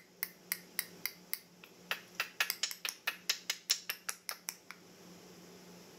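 A quick, uneven run of about twenty sharp clicks, three to five a second, which then stop.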